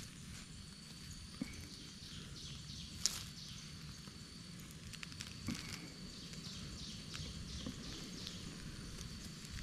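Outdoor ambience: a steady high insect drone with many short chirps over it, and a few sharp crackles and scuffs from dry twigs and soil being disturbed, the loudest about three seconds in.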